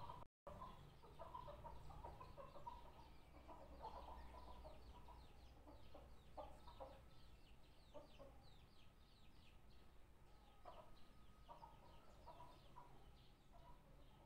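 Faint chickens clucking with small birds chirping in rapid short calls, over a low steady hum.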